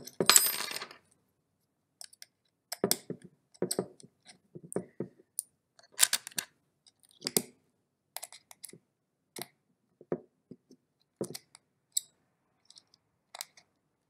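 Small L-shaped hex key turning a screw into a plastic keypad casing: irregular light metallic clicks and clinks as the key is turned and reset, with the loudest clatter in the first second.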